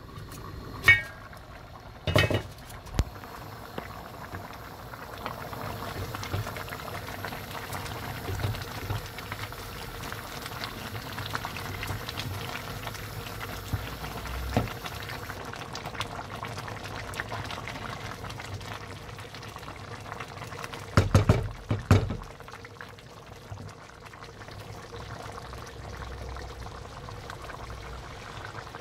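Pilau rice with chickpeas and potatoes bubbling in its cooking liquid in a pot, a steady boiling sound. A few sharp clinks come in the first three seconds, and a short clatter about 21 seconds in.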